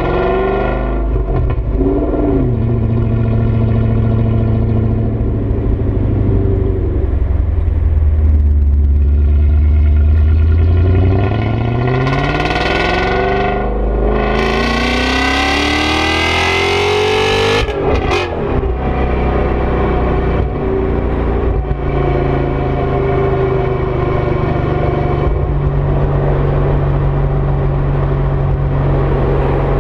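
BMW E39 M5's 4.9-litre V8 through a Dinan exhaust, heard at the tailpipe while driving. The engine note rises steadily under acceleration for several seconds about halfway through, drops sharply, then settles into a steady cruise.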